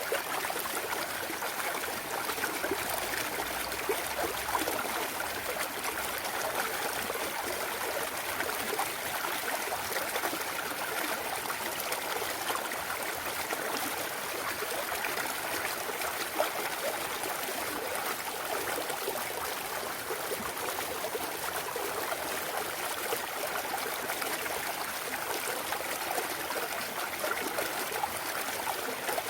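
Clear mountain stream running over rocks, a steady trickling and babbling of water with small splashes throughout.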